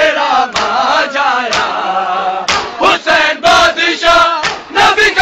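Group of men chanting an Urdu nauha lament in chorus, loud and close. Sharp slaps fall through the chant about every half second: the chest-beating (matam) that goes with the nauha.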